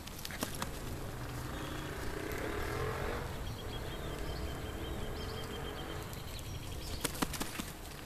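Street sound of a car passing, its noise swelling about two seconds in and fading over the next few seconds, followed by a few sharp clicks near the end.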